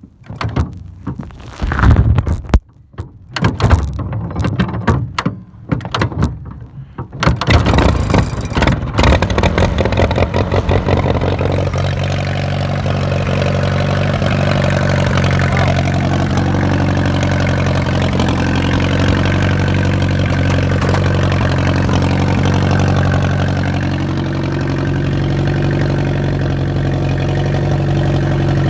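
1939 Allis-Chalmers Model B tractor's four-cylinder engine starting: a few seconds of uneven clatter and knocks, then the engine catches about seven seconds in, runs up and settles into a steady idle.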